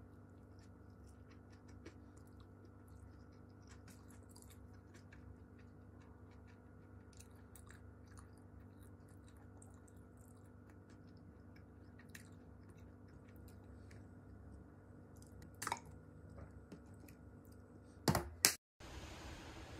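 Close-up eating sounds: quiet chewing, with light clicks of wooden chopsticks and a wooden spoon against a ceramic plate, over a steady low hum. Two loud knocks near the end.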